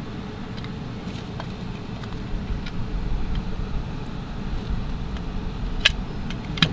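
A steady low rumble, with a few light clicks of deadbolt lock parts being handled and lined up. Two sharper clicks come near the end.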